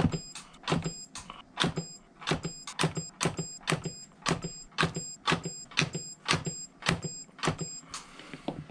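K-Weld capacitor-less battery spot welder firing, welding pure nickel strip onto the ends of LiFePO4 32650 cells: a quick run of sharp snapping clicks, about two a second, that stops near the end.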